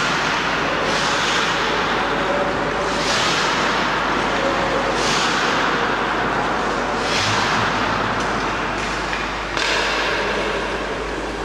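Hockey skate blades scraping and carving on the ice as players stride and turn, a hissing scrape swelling up about every two seconds over a steady rink din with a low hum.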